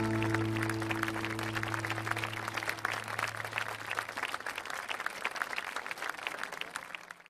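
The last held chord of a song dies away under applause, a dense patter of clapping that goes on after the music is gone and slowly fades out near the end.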